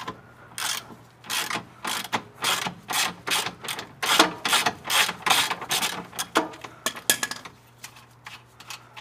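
A 17 mm socket ratchet clicking in quick back-and-forth strokes, about two a second, as it turns out a bolt on a car's rear lower control arm. The strokes fade out near the end.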